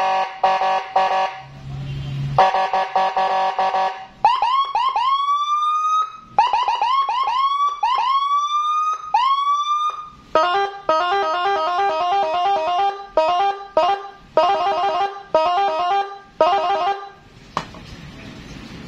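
Custom Whelen police-escort electronic siren with telolet horn tones, 45 watts, sounding through its speaker and cycling through its tones. It starts with choppy chord-like horn blasts, then gives a string of rising whoops, then fast alternating tone bursts that stop near the end.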